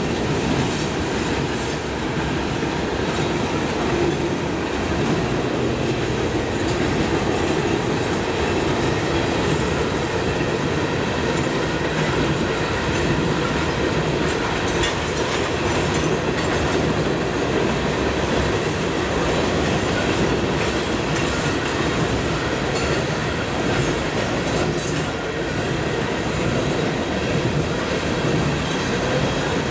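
Norfolk Southern coal train's hopper cars rolling past steadily: a continuous rumble of steel wheels on rail, with scattered clicks of the wheels over the rail joints.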